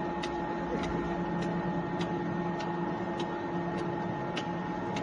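Automatic wonton and dim sum wrapper-forming machine running: a steady motor hum with a light tick repeating evenly a little under twice a second.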